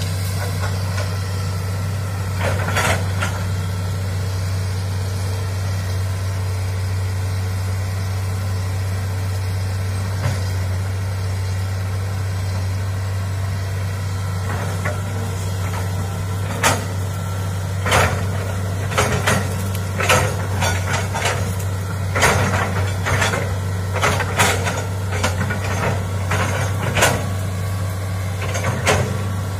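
Hitachi crawler excavator's diesel engine running steadily with a low drone. From about halfway through, a run of sharp knocks and clanks cuts through the engine noise.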